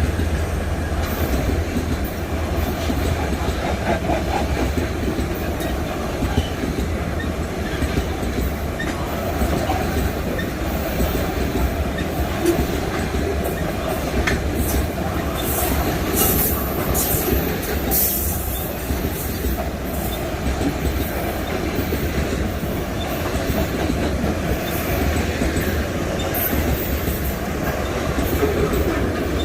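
Freight train wagons rolling steadily past, the wheels rumbling on the rails, with short high-pitched squeals and clicks from the wheels now and then, most of them around the middle.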